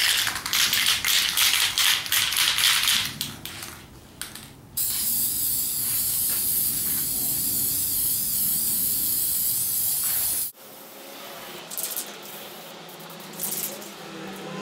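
Aerosol spray-paint can: a few seconds of rapid uneven rattling, then a steady hiss of paint spraying for about six seconds that cuts off suddenly, as another coat goes onto plastic blaster parts.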